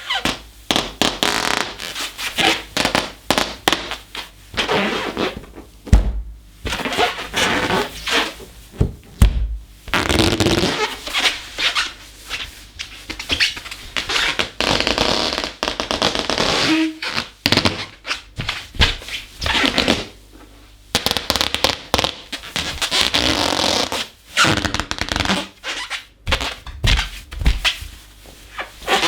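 Inflated balloon being rubbed and squeezed, giving irregular bursts of rubbery squeaking in quick succession without popping, with a couple of dull thumps.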